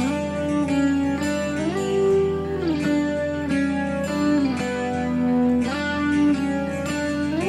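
Background music with guitar, its notes gliding smoothly from one pitch to the next.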